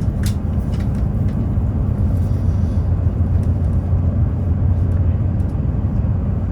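Steady low rumble of a train running, heard from inside the carriage, with a few faint clicks.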